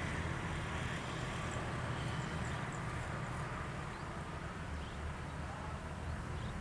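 Distant diesel locomotive hauling a passenger train on its approach: a steady low rumble, with a few faint, high, short chirps above it.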